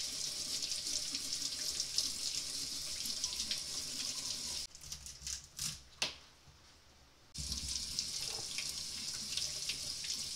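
Kitchen faucet running into the sink over potatoes being scrubbed with a brush. The water stops after about four and a half seconds, leaving a few clicks and knocks, then runs again about three seconds later as a beet is scrubbed.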